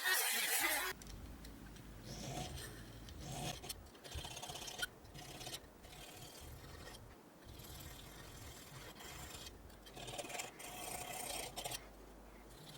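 A loud machine-like sound that stops about a second in, then irregular scraping and rubbing strokes on a workpiece, with short pauses between them.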